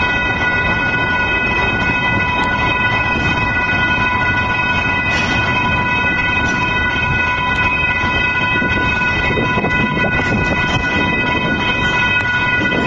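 Union Pacific double-stack container train rolling past a level crossing, its wheels and cars making a steady rumble, with a steady high ringing tone over it.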